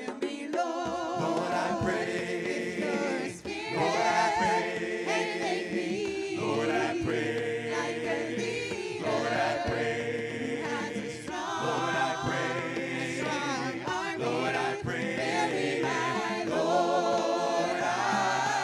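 Church choir singing a worship song a cappella in several parts, with the men's voices now singing alongside the women's.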